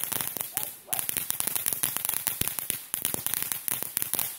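Ground fountain firework crackling: a rapid, irregular run of sharp pops and cracks, with a brief lull about a second in.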